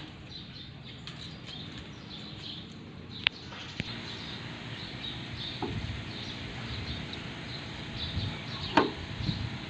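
Handling a metal paint can to pour jet black paint into a spray gun's cup: two sharp clicks a little past three seconds in, then scraping and a knock near the end over steady outdoor background noise with faint bird chirps.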